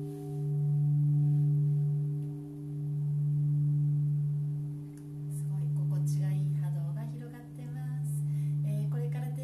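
Large Japanese temple bowl bell (rin) ringing out: a deep, steady hum with a few higher overtones that swells and fades in a slow wobble about every two and a half seconds.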